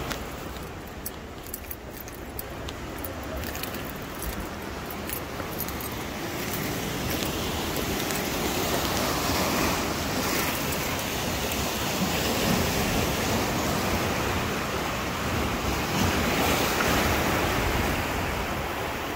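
Sea surf breaking and washing over a rocky shore: a steady rushing noise that grows louder partway through.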